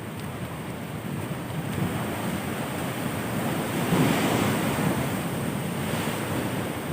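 Big ocean waves breaking on a beach, a rushing surf that swells to a loud crash about four seconds in, with wind on the microphone.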